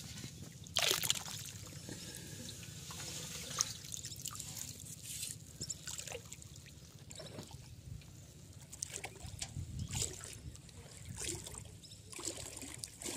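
Water trickling and splashing irregularly, with a louder splash about a second in.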